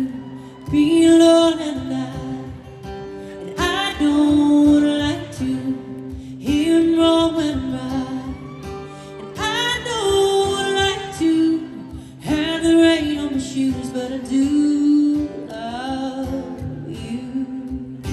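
Live female vocal with acoustic guitar accompaniment: a slow ballad sung in long, held phrases over plucked and strummed guitar.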